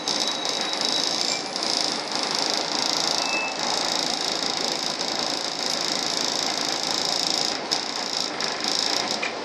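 Cabin noise on the upper deck of a moving Volvo double-decker bus: a steady hiss and rattle over the drone of the running bus. It sets in suddenly and breaks up briefly near the end.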